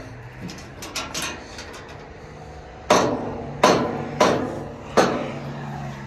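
Light clicks, then four sharp metallic bangs about half a second apart, each with a short ring. This is a latched sheet-metal panel on a small Chinese-made mini excavator being yanked and rattled, and it will not open.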